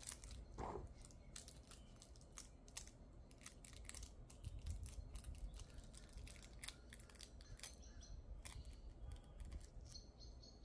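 Faint, irregular crackling and crinkling of nail transfer foil and disposable gloves rubbing as the foil is pressed onto a gel nail tip and then peeled off, with a short squeak under a second in.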